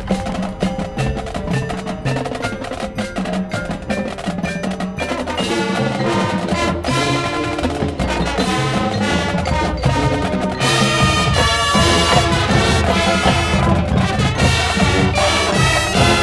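Marching band playing, opening with mallet percussion and drums that build steadily, then the full brass section comes in louder and brighter about ten seconds in.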